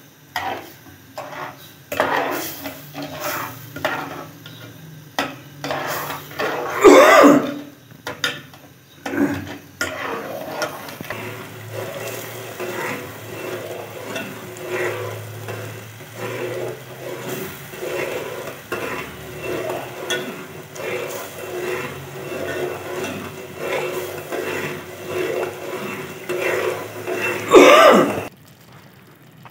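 A metal spoon stirring and scraping halwa in an aluminium pot, knocking against the pot's sides in quick strokes. Two louder, drawn-out sounds stand out, about seven seconds in and near the end.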